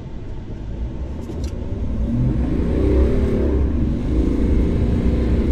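2021 GMC AT4 pickup's engine revving hard over a low rumble during a burnout on dirt. The revs climb about two seconds in, dip briefly, and climb again near the end.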